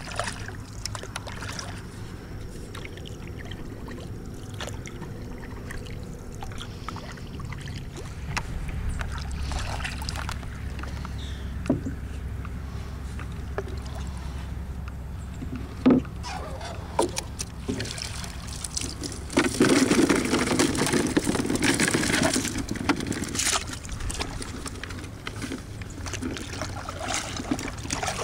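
Water splashing and dripping around a small boat as a wooden paddle reaches for a crawfish trap float and the net is worked, with scattered knocks against the hull. About 20 seconds in there are a few seconds of loud splashing and pouring water. A steady low hum sits underneath.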